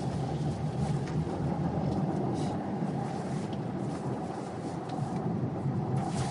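Steady road and engine noise heard inside a moving car's cabin: an even low rumble with no breaks.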